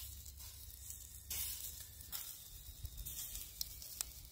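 Chicken kebab sizzling as it cooks: a steady hiss with a few louder surges and small pops.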